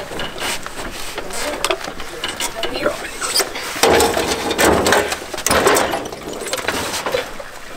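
Clanking, rattling and scraping of a Honda CG125 motorcycle being lifted down off a truck bed, metal knocking against metal throughout, with louder scraping a few seconds in.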